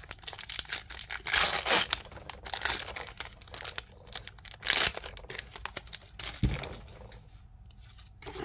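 Foil booster pack wrapper being torn open and crinkled by hand, in irregular crackly bursts that are loudest about a second and a half in and again near five seconds, easing off toward the end.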